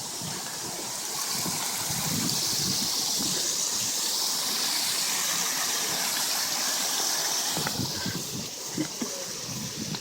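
Waterfall of a garden pond, water pouring and splashing in a steady rush that grows louder about a second in and falls back near the end.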